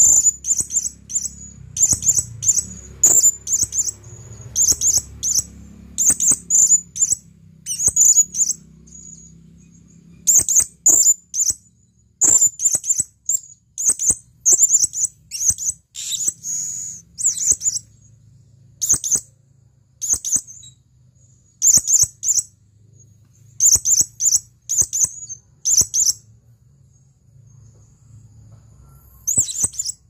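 Male blue-crowned hanging parrot (serindit) calling: short, high, sharp notes in quick clusters of two to four, repeated about every second, with brief pauses about nine seconds in and near the end. It is the male's call to females.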